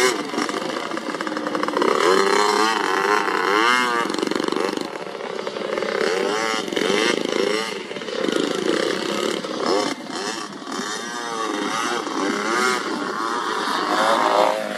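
Several motocross dirt bikes running on a track at once, their engines revving up and falling back again and again, the pitches overlapping.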